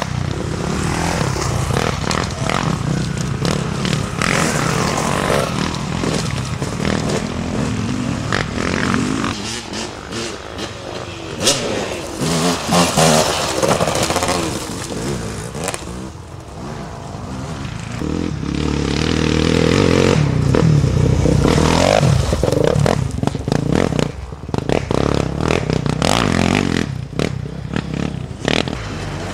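Enduro dirt bike engines revving and labouring as the bikes climb a rocky trail one after another, with loose stones clattering under the tyres. One engine climbs in pitch about two-thirds of the way through and is loudest soon after.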